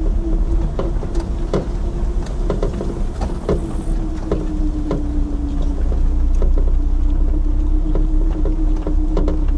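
Chevrolet Niva driving over a rough grass track, heard from inside the cabin: a steady engine drone and rumble, with frequent short knocks and rattles from the body and loose cargo in the back.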